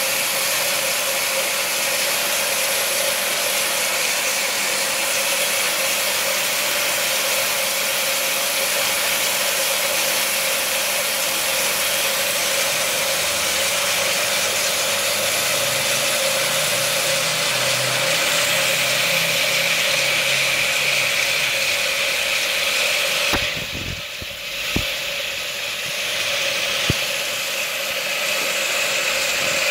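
Electric water pump of a DIY venturi microbubble generator running steadily, with a continuous hiss of water and air forced through the nozzle. About three quarters of the way in the sound is briefly muffled, with a few sharp clicks.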